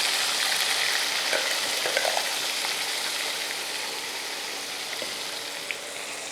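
Masala puree sizzling in hot oil in a kadai, with a few light clicks of a spoon; the sizzle gradually gets quieter.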